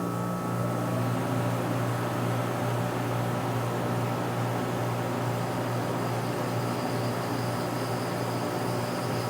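Chiller running, with a steady low electrical hum and an even rushing, fan-like noise. A faint high whine joins in about six seconds in.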